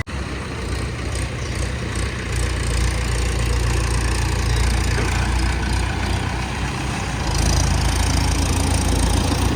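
A vehicle engine running steadily under a rattling, crackling noise, getting louder about seven seconds in.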